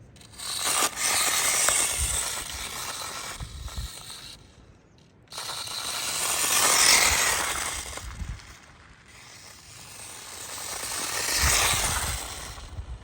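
A small 1/24-scale RC truck (an SCX24-based MicroRunner) driving over loose dirt and gravel, its tyres crunching and scraping over stones with the running of its little drivetrain. It swells and fades three times as it makes passes.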